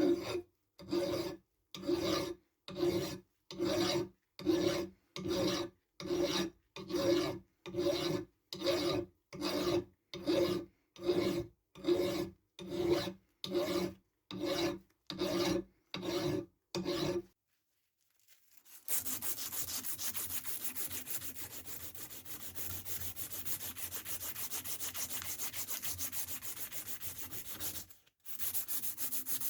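Hand file rasping across the steel of a small anvil in even strokes, about one a second, each with a slight metallic ring. After a short pause, a power sander runs steadily against the metal, cutting out briefly near the end.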